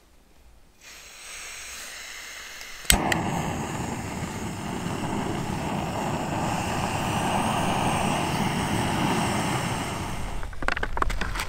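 Jetboil backpacking stove being lit: a faint hiss of gas, then a sharp igniter click about three seconds in, and the burner catches and runs with a steady, loud rushing flame. A few light knocks near the end.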